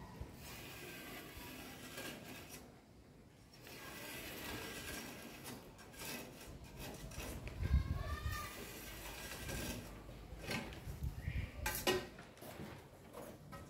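Irregular scraping and rubbing, broken by a few sharp clicks and knocks, loudest about two-thirds of the way through.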